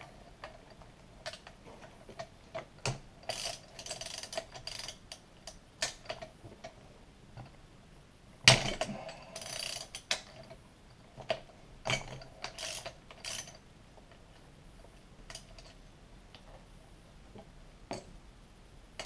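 Hand ratchet clicking in short bursts as a clutch puller is cranked down on a 66cc two-stroke bicycle engine's clutch, with one loud sharp crack about eight and a half seconds in as the clutch breaks loose, then more clicking.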